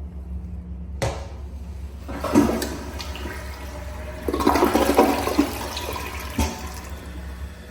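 Kohler Highline Class 5 toilet being flushed. A click of the handle about a second in is followed by a rushing of water that swells twice. A short knock comes near the end as the flush fades.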